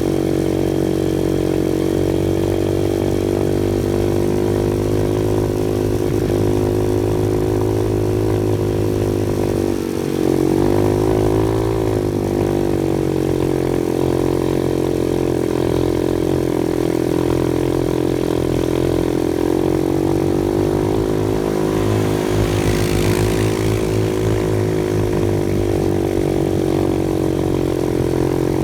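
Off-road vehicle engine running steadily. Its pitch dips briefly about ten seconds in, then rises again as the throttle picks up. There is a short rush of hiss a little past twenty seconds.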